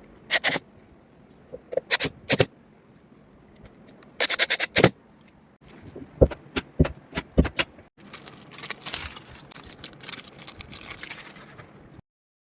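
Metal door hardware being handled: groups of sharp clicks and rattles, then several seconds of scraping, ending in a sudden cut to silence.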